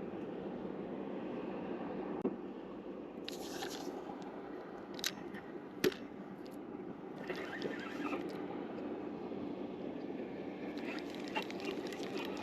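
Spinning reel being wound in three short spells with pauses between, and a few sharp clicks: line is being retrieved slowly to drag a marker weight along the river bottom and feel for the drop-off.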